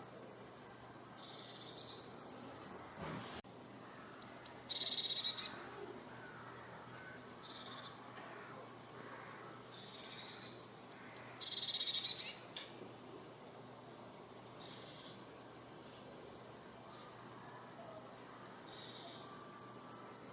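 A songbird singing the same short phrase over and over, about every two seconds: a quick run of three or four high, falling notes, then a lower trilled note.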